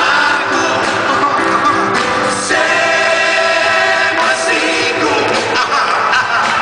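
Two male singers singing into microphones over amplified backing music, heard through the hall's PA from among the audience, with a long held note near the middle.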